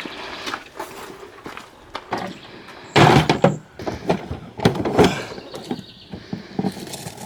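A run of knocks and thuds, with the loudest clusters about three seconds in and again about five seconds in.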